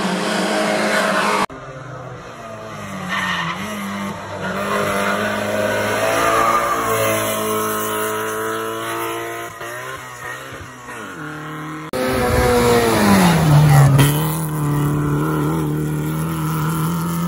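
Small hatchback race car's engine running hard at high revs through hillclimb corners, its pitch rising and falling with throttle and gear changes, with tyre squeal. The sound cuts abruptly twice, and near the end the engine note drops sharply and then holds steady.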